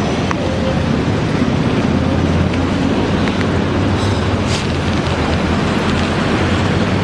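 Steady city traffic rumble from the road, with a continuous low drone of vehicle engines and tyre noise.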